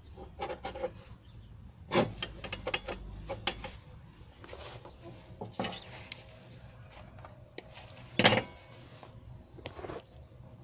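Steel parts and a locking-plier clamp clinking and clanking on a steel bench top as they are handled, in scattered knocks, the loudest about two seconds in and about eight seconds in.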